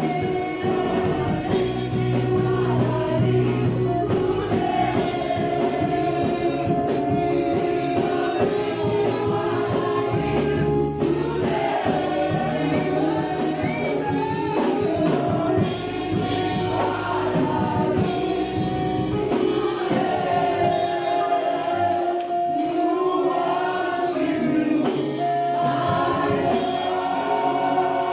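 Gospel music: a choir singing with held notes over a steady bass line and tambourine-driven accompaniment.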